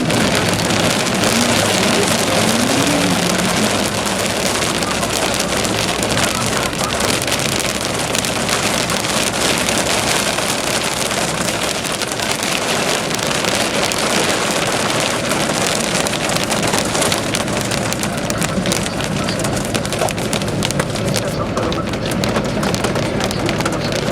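Rain pattering steadily on a moving bus, a dense hiss of drops over the low rumble of the engine and tyres.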